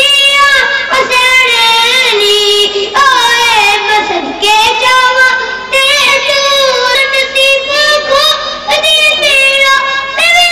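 A single high voice singing a devotional song without instruments, in long held notes that waver and glide in pitch, with short breaks for breath.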